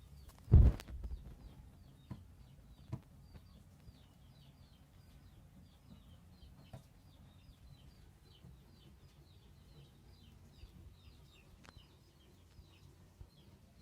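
Birds chirping steadily in the background, a rapid run of small high chirps. There is one loud knock about half a second in and a few lighter clicks after it.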